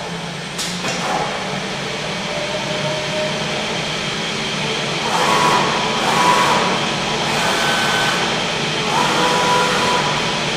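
Zünd G3 digital cutter running a cutting job: a steady machine hum and whir, with several short high whines that come and go from about halfway through as the cutting head and gantry move.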